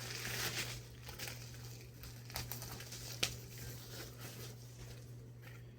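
Faint crinkling and rustling of packaging being handled, with a couple of sharp ticks, dying away over the first few seconds. A low steady hum sits underneath.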